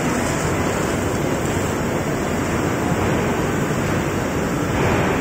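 Steady machinery noise from an automatic plywood veneer paving line running, an even rumbling hiss with no distinct knocks.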